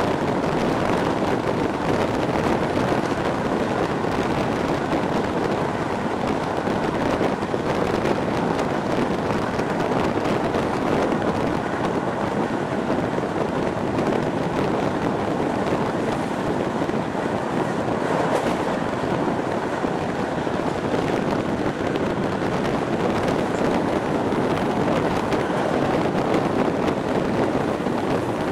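Steady rush of wind and rolling noise at an open window of a moving passenger coach, with wind buffeting the microphone.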